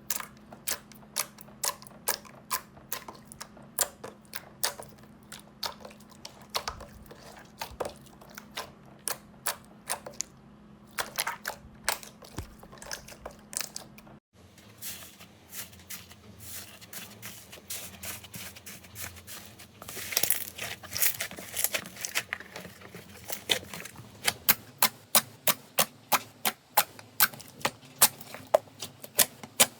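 Slime being pressed and poked by hand, giving a steady run of sharp clicking pops, about two a second. After a cut about fourteen seconds in, a second slime clip brings a denser crackling stretch, then regular, louder pops toward the end.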